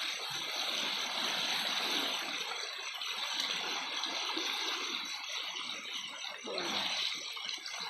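River water rushing and gurgling steadily.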